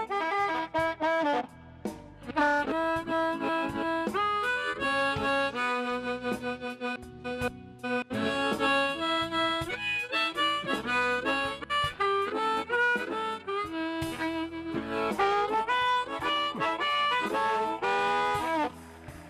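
Blues harmonica played solo: quick runs of short notes and held notes bent up and down, with a couple of brief breaks. The playing stops shortly before the end.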